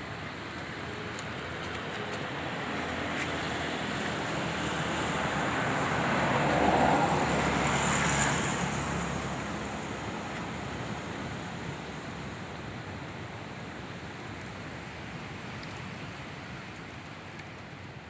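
A road vehicle passing by: a steady traffic noise that swells to its loudest about seven to eight seconds in and then slowly fades away.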